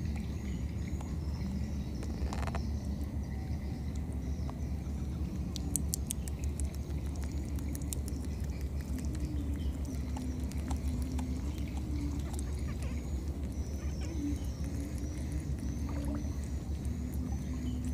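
Outdoor ambience: a steady low rumble, with faint high chirps repeating about twice a second near the start and again toward the end, and a few light clicks about six seconds in.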